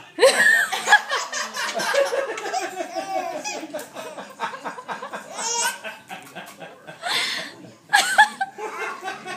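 Baby laughing in repeated fits of short, pulsing bursts, loud right at the start, then again about five and a half, seven and eight seconds in.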